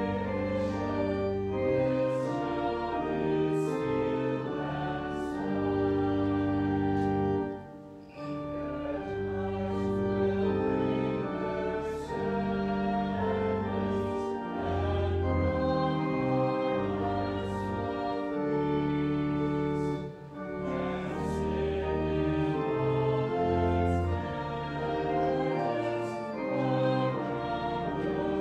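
Slow church music with voices singing in held chords, moving phrase by phrase, with brief breaks between phrases about eight and twenty seconds in.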